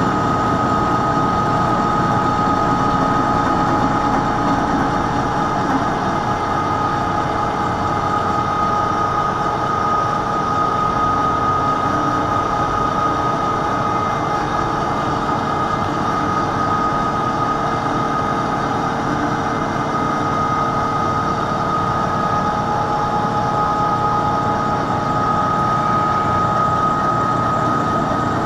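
Bridgeport milling machine's spindle driving a hole cutter down through 2-inch schedule 40 steel pipe on power feed: a steady cutting sound with a high, even whine, past the rough start where the cutter enters the pipe's curved wall.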